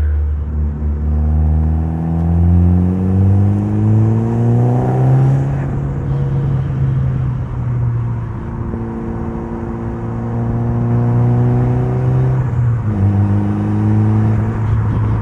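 Mitsubishi Lancer Evolution's 4G63 turbocharged inline-four under hard acceleration. The revs climb for about five seconds and fall away, rise slowly again, drop sharply about two-thirds of the way through, then climb once more.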